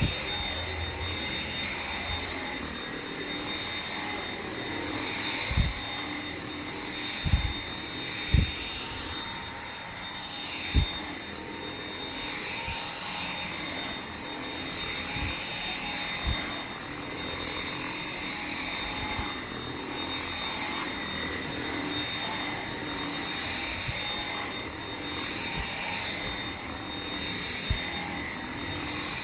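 Dyson V7 Motorhead cordless stick vacuum running steadily on carpet, a constant high whine over airflow hiss that swells and fades as it is pushed back and forth. A few dull low thumps from the cleaner head come in the first half.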